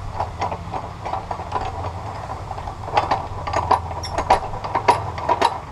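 Irregular metallic clinks and taps from steel angle iron being handled and set in place for cutting, coming thicker in the second half, over a steady low hum.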